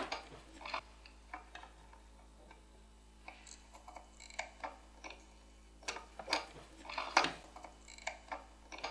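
Small, irregular clicks and ticks while resistor leads are soldered onto a small circuit board, as the solder wire and soldering iron tip work against the leads and board.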